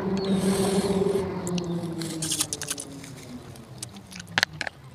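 Close-up eating sounds: mouth clicks and smacks as spicy noodles are eaten with chopsticks, the sharpest click about four and a half seconds in. Under them a steady low drone slowly drops in pitch and fades away.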